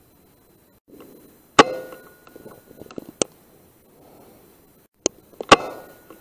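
Two shots from an Air Arms S510 .177 pre-charged air rifle, about four seconds apart, each a sharp crack with a short ringing tail. Two thinner sharp clicks fall between them.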